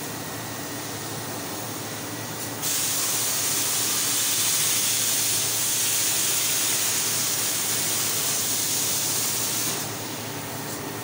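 CNC laser cutting machine cutting sheet steel: a loud, even hiss of assist gas blasting through the cutting nozzle starts abruptly about two and a half seconds in and cuts off about a second before the end, over the machine's steady running noise.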